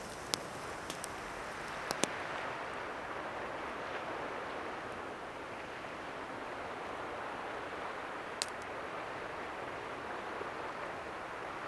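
Pine fatwood campfire crackling, with a handful of sharp pops in the first couple of seconds and one more later, over a steady wash of ocean surf.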